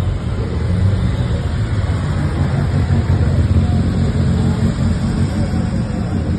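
Classic rally cars driving slowly past one after another, their engines running with a steady low rumble over street noise.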